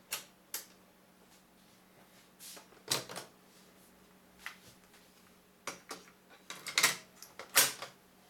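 Mechanical clicks and clacks of an Akai GXC-39D cassette deck being worked by hand: the power push-button clicks twice, the cassette door springs open with a loud clack about three seconds in, then a quick run of plastic clicks of the cassette being handled in the open door, the loudest near the end.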